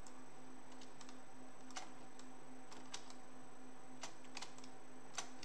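Scattered clicks of a computer mouse and keyboard keys, about eight in five seconds, over a steady faint hum.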